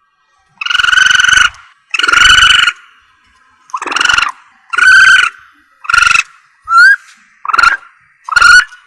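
Civet calls: a series of about eight harsh, pitched calls, each half a second to a second long, with short gaps between them and one brief rising squeak near the middle.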